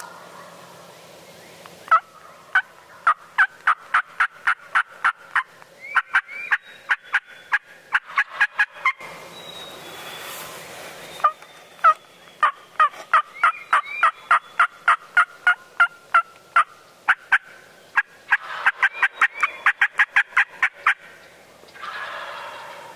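Wild turkey yelping: long runs of sharp, evenly spaced calls, about three or four a second, in three series with short breaks between them.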